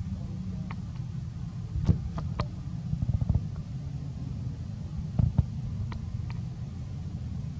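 A steady low rumble with scattered sharp clicks and knocks, the loudest about two seconds in and again just after five seconds.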